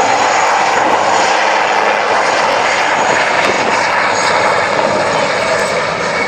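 Military helicopter flying a low pass, its turbine engines and rotor making a loud, steady noise that eases slightly near the end.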